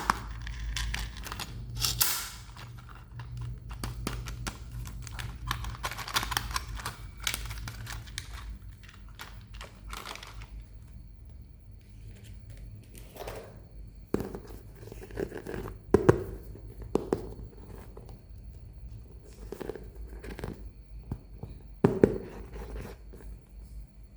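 Packaging being torn and crinkled for several seconds, then a run of light knocks and a few sharp taps as items are handled.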